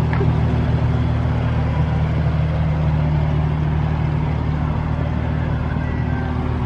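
Nissan 350Z roadster's 3.5-litre V6 engine idling steadily.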